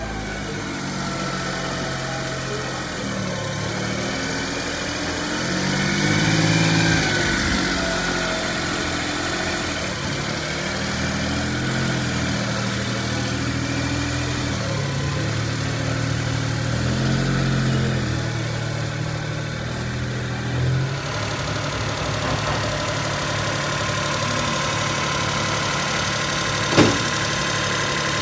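Suzuki Carry kei truck's small three-cylinder engine idling, its speed rising and falling briefly several times. A single sharp click comes near the end.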